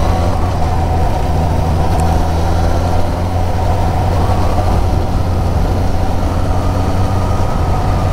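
Motorcycle engine running steadily on the move, with wind and road noise over the microphone.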